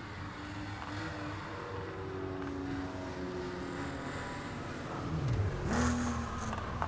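Nissan Skyline GT-R R34's twin-turbo straight-six idling steadily, then revved once about five seconds in. A short rushing turbo flutter follows as the throttle closes.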